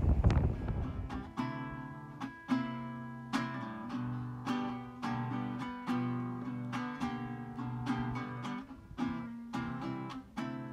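Background music: a solo acoustic guitar picking a slow melody, a plucked note a little more than once a second. A brief rush of wind on the microphone fades out at the very start.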